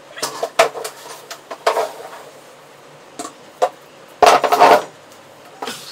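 A plastic chair being picked up, carried and set down on the floor: a series of knocks and scrapes, the loudest and longest about four seconds in as its legs come down, and another knock near the end.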